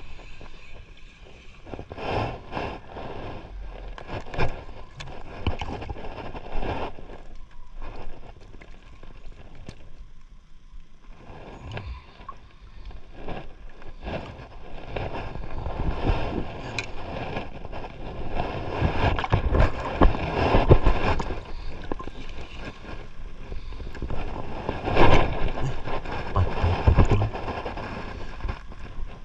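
Water slapping and gurgling against a small boat's hull, with irregular knocks and rustles from handling on board; the loudest surges come about two-thirds of the way through and again near the end.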